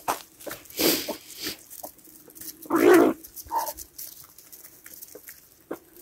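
Domestic chickens calling in short, irregular clucks and squawks, with the loudest squawk about three seconds in.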